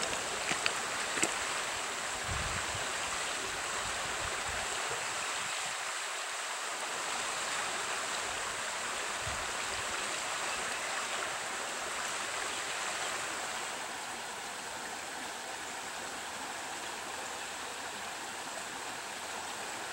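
Creek water flowing, a steady wash of water noise.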